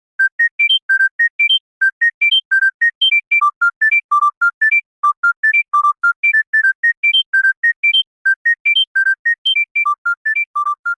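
Smartphone ringtone: a fast melody of short, clean electronic beeping notes in rising runs, starting just after a moment of silence and repeating its phrase.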